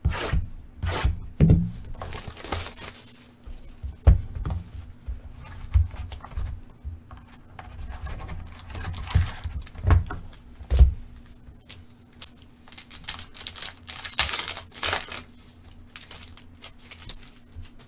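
Hands opening a box of football trading cards and handling the foil packs inside: a string of cardboard knocks and taps, with bursts of crinkling and tearing from a foil pack wrapper being ripped open.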